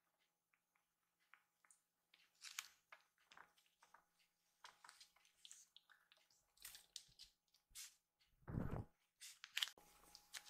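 Faint, scattered light scratches and rustles of a kitten's paws and claws on a floor mat and a towel as it plays, with a dull low thump near the end followed by a sharp click.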